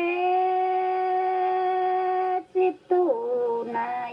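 A high voice singing: one long held note for about two and a half seconds, then, after a short break, a few notes falling to a lower, slightly wavering note.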